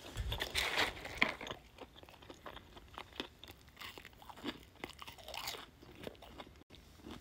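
A person chewing a mouthful of chicken cheesesteak wrap close to the microphone, with faint irregular mouth clicks. It is louder for the first second and a half, while the paper-lined takeout container is handled.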